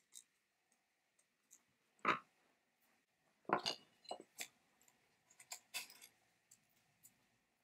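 Scattered clinks, knocks and rustles of hands handling a chainsaw's aluminium handle and its wiring with crimped ring terminals. The loudest knocks come about two and three and a half seconds in, followed by a run of smaller ticks.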